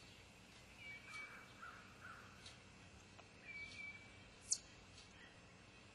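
Faint outdoor ambience with a few distant bird calls, short whistled notes heard twice, and one sharp, high-pitched click about four and a half seconds in.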